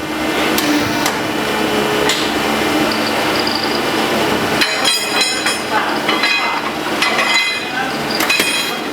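A four-block semi-hydraulic hollow concrete block press running: a steady machine noise, with a run of sharp metal clanks and ringing in the second half.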